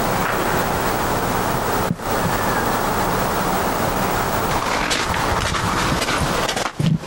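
Wind rushing over the camcorder's microphone, a steady loud roar with a brief break about two seconds in and a few bumps near the end.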